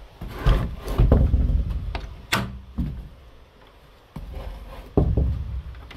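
A series of heavy, low thumps and sharp knocks, about six of them, with a short low creak right after the sharpest knock about two seconds in.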